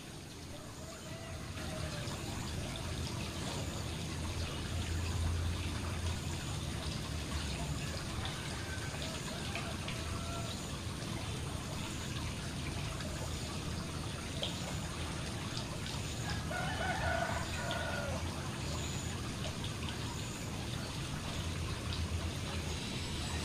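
Garden pond fountain spraying and splashing steadily onto the water surface. A short pitched call, like a rooster crowing, is heard about two-thirds of the way through.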